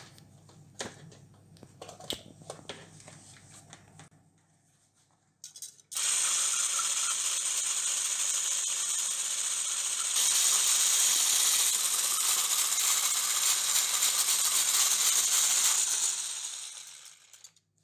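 A few light clicks and knocks, then an electric hand blender starts suddenly and runs steadily, whipping egg whites into foam in its plastic beaker. It gets louder about ten seconds in and winds down near the end.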